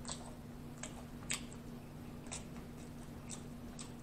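Close-miked chewing of fried food: soft wet mouth clicks about twice a second, one louder about a second and a half in.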